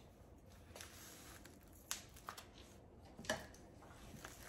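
Faint handling sounds, with a few soft clicks, as metal kitchen tongs lift raw chicken breasts off a plastic-wrapped tray into a ceramic slow cooker crock.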